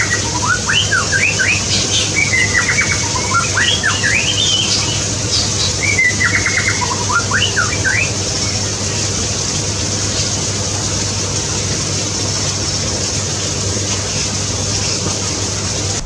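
Small birds calling in an aviary: short rising chirps and a few quick chattering notes for about the first eight seconds, then a steady background hiss with a low hum.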